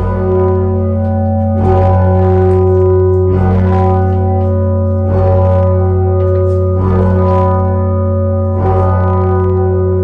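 Rope-rung tower bells swinging full circle, a new bell struck about every one and a half to two seconds, their notes ringing on over one another above a steady low hum.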